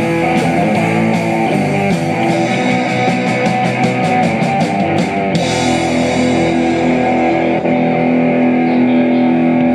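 Live rock band playing the instrumental close of a song, led by electric guitar: a quick run of repeated strokes, about five a second, then a final chord held and ringing out.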